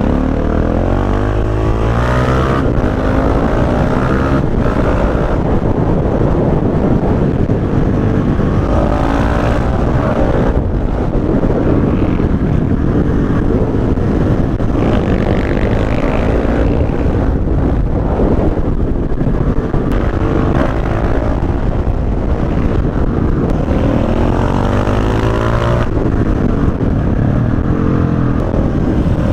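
KTM 690 SMC R's single-cylinder engine through an Akrapovic exhaust with the dB killer removed, running loud, its pitch rising and dropping back again and again as it revs up and falls off.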